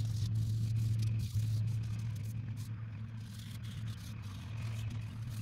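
A steady low hum, with faint scratching as small wooden lures are rubbed and sanded by hand.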